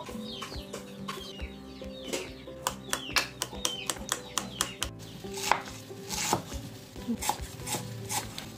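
Hens clucking in quick falling calls for the first second or two. Then a metal spoon clinks and scrapes against a ceramic bowl many times as soft roasted eggplant is mashed.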